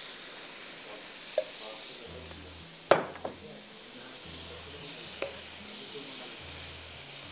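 Vegetables and masala sizzling in a cooking pot, with a metal spoon knocking against the pot four times while stirring; the loudest knock is about three seconds in.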